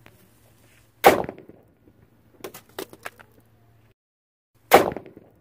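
Homemade wax-and-gunpowder firework going off: two sharp, loud bangs about three and a half seconds apart, with a few smaller pops between them.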